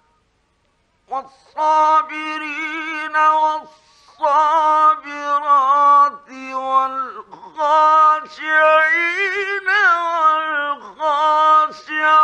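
A man chanting the Quran in a melodic, drawn-out recitation. Long ornamented phrases bend and turn in pitch and are separated by short breaths. The voice begins about a second in; the sound is an old 1950s radio recording.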